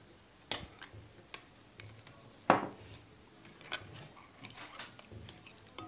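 Kitchen clatter of a metal spoon and a drinking glass knocking against a glass mixing bowl and the table. There is one sharp knock about two and a half seconds in, then a run of lighter taps as barley flour is stirred into the liquid.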